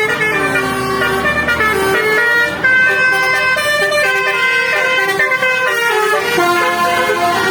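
Basuri musical horn, the telolet type, playing a long unbroken melody: a run of held notes stepping up and down in pitch.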